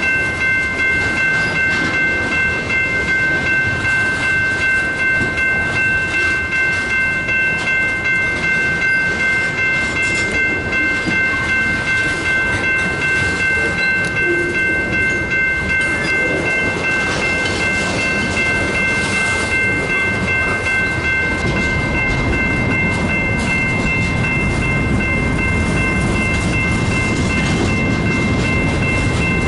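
Freight train cars rolling past close by, wheels clicking over the rail joints in an even rhythm of about one and a half clicks a second, with a steady high-pitched tone over it. About two-thirds of the way through, the rhythm gives way to a steadier, deeper rumble.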